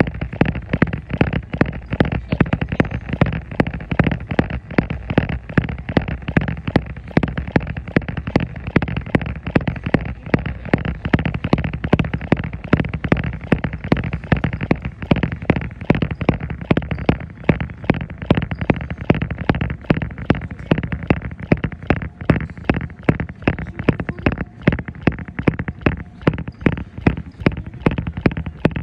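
Footfalls jogging on a treadmill, landing in an even rhythm on the moving belt, with a steady low hum from the machine underneath.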